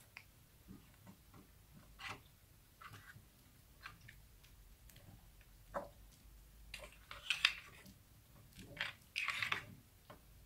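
Clear glitter slime being poked and pressed by fingers in a bowl, giving faint irregular sticky pops and crackles, with two busier bursts of crackling in the second half.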